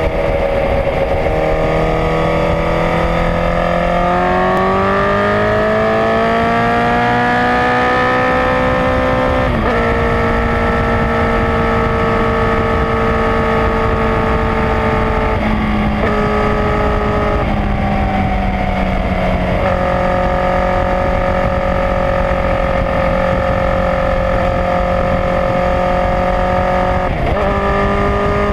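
Honda CBR1000RR's inline-four engine running under way, its note climbing for several seconds as it accelerates, then holding a steady cruising pitch with a few brief shifts in pitch, over a constant rush of wind.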